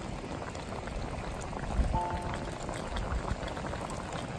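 Spicy braised chicken stew (dakbokkeumtang) bubbling at a boil in a pan, a steady crackle of many small pops.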